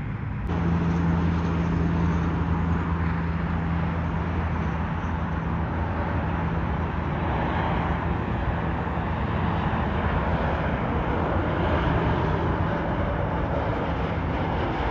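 Jet engine noise of a Boeing 737 MAX 8 airliner, its CFM LEAP-1B turbofans running at approach power as it comes in low to land: a steady rush over a low hum, starting abruptly about half a second in.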